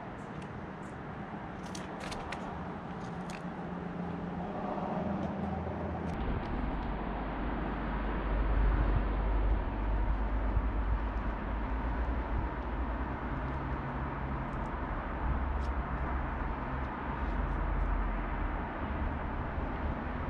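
Steady rushing outdoor background noise. A heavy low rumble sets in about six seconds in and stays, with a few faint clicks in the first few seconds.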